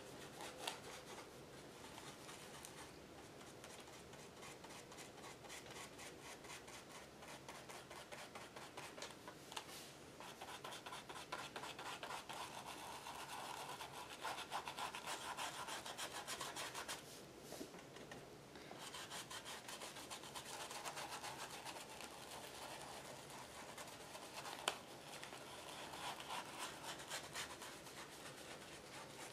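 Faint, rapid scrubbing and dabbing of an ink applicator rubbing black ink through a plastic cat-head stencil onto the journal page paper. The strokes come in spells, with a short lull about two-thirds of the way in and a single sharp tap soon after.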